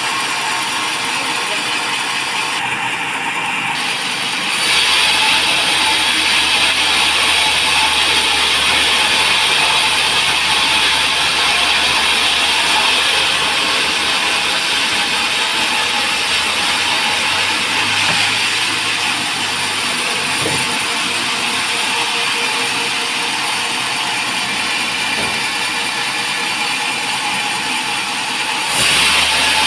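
Band sawmill running, its blade sawing through a teak log, a steady noisy hiss and whine. It gets louder about four and a half seconds in, with a low hum underneath.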